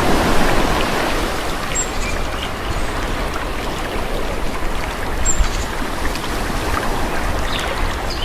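Calm sea waves washing onto a shore: a wave's surge eases off in the first second, and gentle water wash continues after it. Faint, short, high chirps sound a couple of times above the water.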